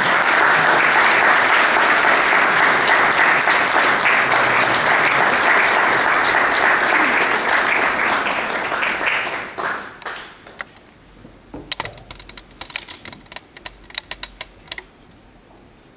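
An audience in a hall applauds with dense, steady clapping. About nine or ten seconds in, the applause dies away to a few scattered claps.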